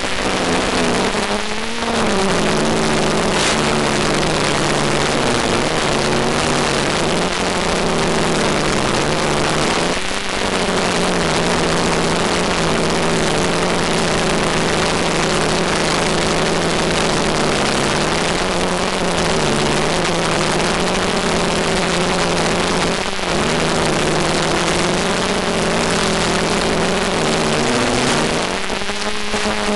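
Small electric multicopter's motors and propellers running in flight, a steady hum whose pitch wanders up and down with throttle, with a few quick dips in pitch, over a constant hiss.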